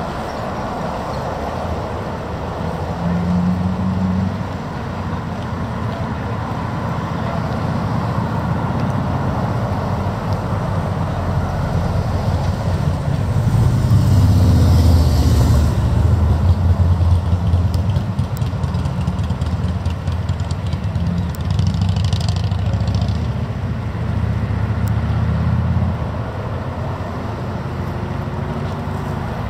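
Road traffic passing over the bridge: a steady low rumble of vehicles, louder from about halfway through, with the hiss of passing tyres.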